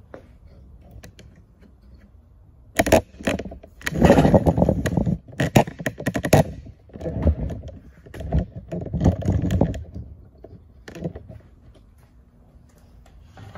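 Close handling noise: irregular knocks, clicks and scrapes in loud clusters as a plastic Stormtrooper helmet and the camera are moved and set down on a table.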